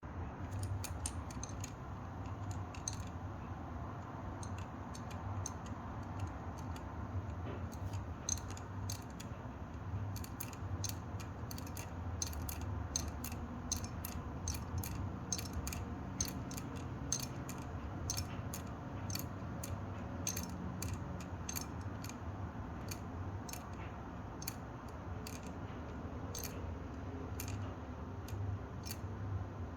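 Engine running steadily with a sharp, irregular knock on top, about two clicks a second: the knock the owner is recording to show a fault.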